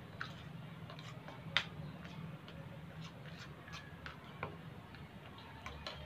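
Metal spoon stirring soap chunks in liquid in a ceramic saucer, giving scattered light clicks against the dish, the sharpest about a second and a half in, over a low steady hum.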